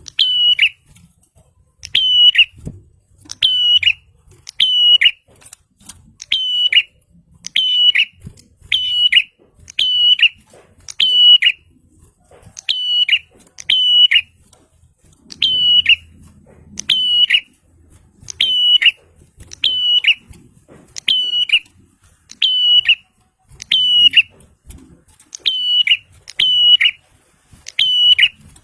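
A prinia (prenjak) calling loudly and without pause: sharp, shrill notes repeated about twice a second, often in pairs. It is the insistent call used as a lure for wild prinias.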